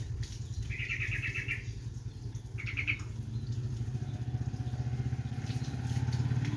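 Yellow-vented bulbul giving two short, rapid chattering calls, about a second in and again near three seconds. Under them runs a steady low engine drone that grows louder near the end.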